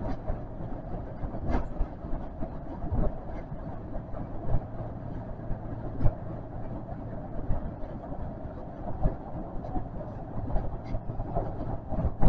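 Osaka Metro 400 series train running through a subway tunnel, heard from inside just behind the cab: a steady low rumble of wheels on rail with a clack about every one and a half seconds as the wheels cross rail joints.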